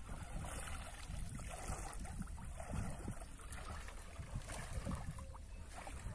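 Shallow water sloshing and swishing around a person's legs as they wade slowly, with small irregular splashes over a steady low rumble.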